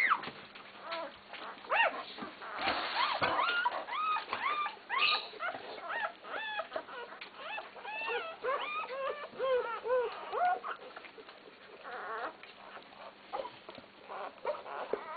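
A litter of newborn basset hound puppies squeaking and whimpering: many short rising-and-falling cries overlapping one another. The cries are busiest through the first ten seconds or so and thin out toward the end.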